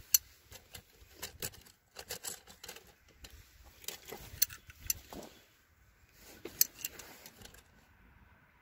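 Scattered light clicks, taps and clinks, irregular, from tools and metal hydraulic fittings being handled; the splitter's engine is not running.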